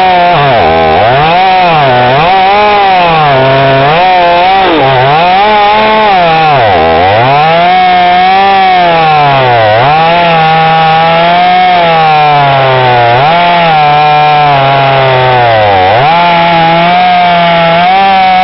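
Kentavr BP-4520N two-stroke petrol chainsaw running loud at high revs, its engine pitch dipping sharply and recovering again every second or two.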